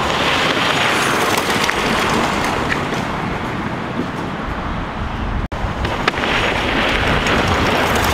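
Steady rushing wind noise on the microphone outdoors. No motor sound stands out: the electric go kart is near-silent. The sound drops out for an instant about five and a half seconds in.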